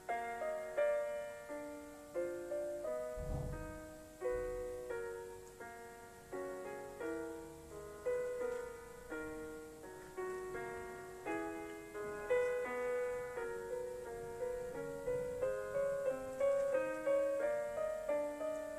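Solo piano music: a slow melody of struck notes and chords, each ringing out and fading. A brief low rumble comes about three seconds in.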